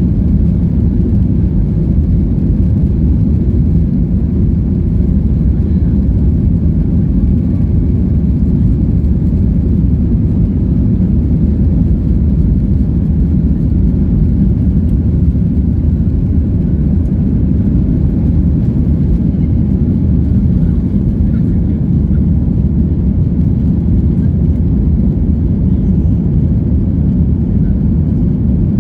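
Steady low rumble inside the cabin of a Boeing 737-800, its CFM56-7B jet engines and airframe heard through the fuselage, with no rise or fall in pitch.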